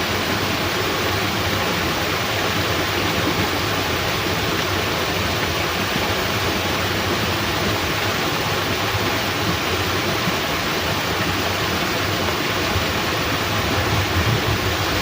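Steady rushing water noise: heavy rain falling together with water pouring through a fishpond sluice gate. A low rumble starts to build near the end.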